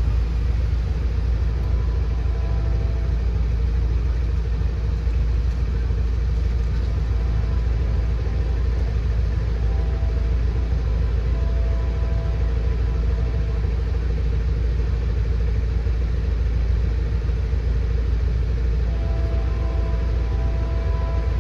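Road traffic passing a railroad crossing: a steady low rumble of cars going by, with faint held tones sounding a few times.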